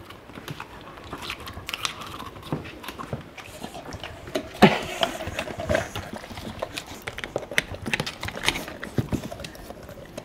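A puppy licking and gnawing at a frozen popsicle: irregular wet licking and smacking clicks, with a louder knock about four and a half seconds in.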